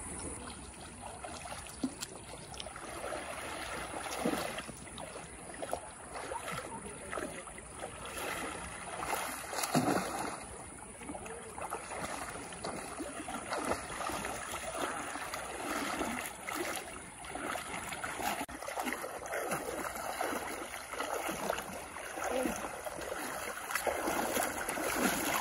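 Shallow river water running and splashing, with scattered small splashes.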